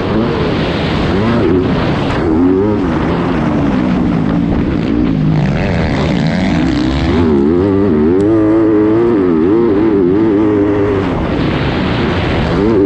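Yamaha YZ250F's 250 cc four-stroke single-cylinder engine under race throttle, heard from on the bike, its pitch rising and falling again and again as the rider gets on and off the throttle and shifts through the track's straights and corners.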